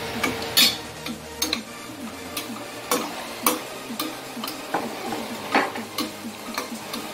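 Onion and desiccated coconut being stirred as they fry in a pan: a utensil scrapes and knocks against the pan in irregular strokes over a faint sizzle.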